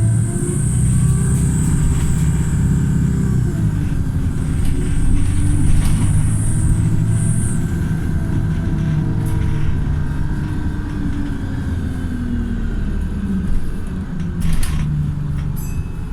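Wright StreetLite single-deck bus's diesel engine running, its note falling and rising as the bus eases off and pulls away again. A high hiss comes twice in the first half, and a couple of short knocks come near the end.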